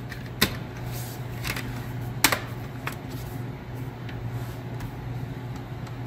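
Plastic palm rest of a Lenovo G50 laptop being pressed down onto the chassis, its clips snapping into place: a few sharp clicks, the loudest about two seconds in, over a steady low hum.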